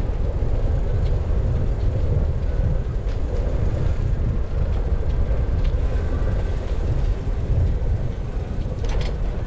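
Steady low rumble of wind on the microphone and bicycle tyres rolling over a smooth path as the bike rides along, with a brief click near the end.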